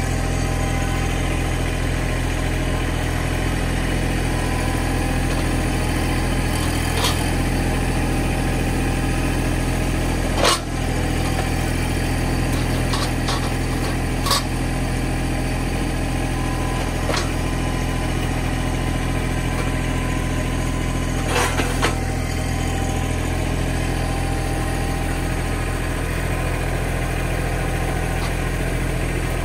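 Mahindra 1626 compact tractor's diesel engine idling steadily, with a few sharp knocks over it, the loudest about ten seconds in.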